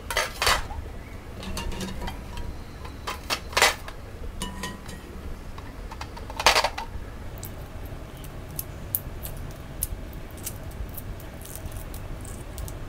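Steel wire skimmer clinking against a steel pan and plate as boiled eggs are scooped out of their water, three loud clinks about three seconds apart. In the second half comes a run of small sharp clicks as the eggshells are cracked for peeling.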